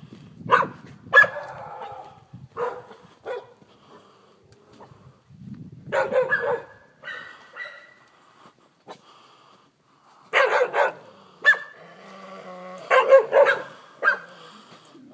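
Dog barking in repeated short, sharp barks, grouped in three bouts with pauses between them: defensive barking at a person the dog is afraid of.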